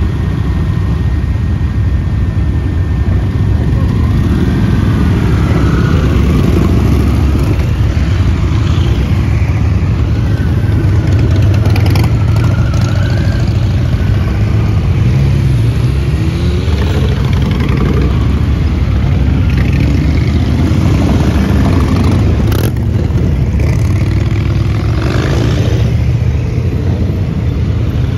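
A slow procession of many motorcycles, a mix of cruisers and touring bikes, riding past with engines idling and pulling away; revs rise several times as individual bikes accelerate, over a steady bed of engine noise.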